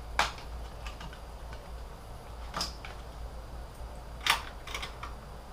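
A few sharp clicks and knocks of hard plastic or metal parts being handled, three distinct ones with the loudest about four seconds in, plus some fainter ticks.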